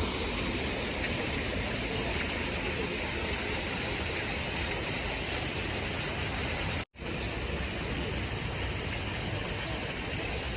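Steady rushing water, like a waterfall, cut off for an instant about seven seconds in and then carrying on the same.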